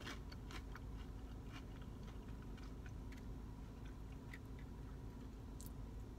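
A person chewing a bitten-off piece of fried onion ring with the mouth closed: faint, scattered crunching clicks over a low steady hum.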